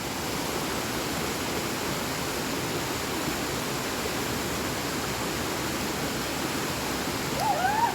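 Steady rush of water falling from a waterfall, with a person's voice briefly near the end.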